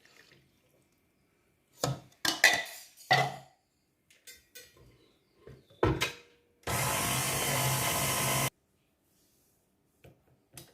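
An electric mixer's motor runs for about two seconds, switched on and cut off abruptly, mixing donut dough just after the milk and yeast went in. Before it, a few sharp clattering knocks.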